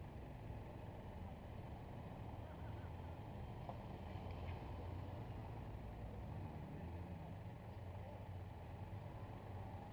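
Several Honda Gold Wing touring motorcycles running at low speed past, a steady low engine rumble that swells slightly as they go by about four seconds in.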